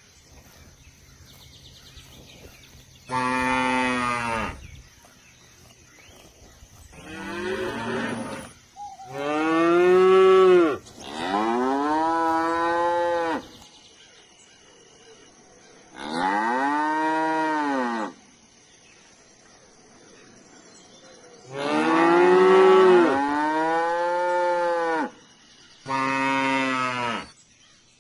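Cattle mooing: about seven separate moos, each one to three seconds long, rising then falling in pitch, with short pauses between.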